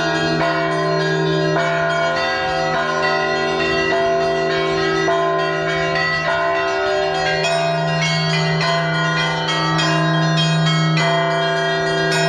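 Russian Orthodox church bells rung together in a festive peal (zvon): smaller bells struck in quick, dense strokes over the sustained hum of a large bell.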